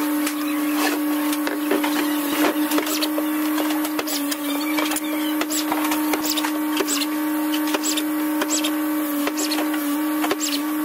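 Electric motor of a workshop power tool running at a steady high whine, with scattered clicks and knocks of wood and hardware being handled.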